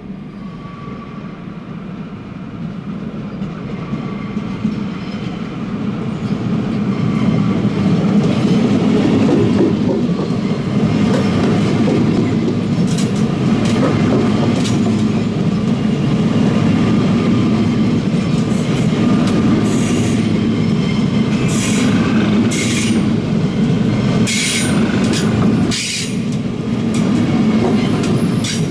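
SBB RABe 502 Twindexx double-deck electric train running past along the platform. Its running noise builds over the first several seconds as it nears, then holds steady. In the second half there are repeated short, high squeals and clicks from the wheels on the track.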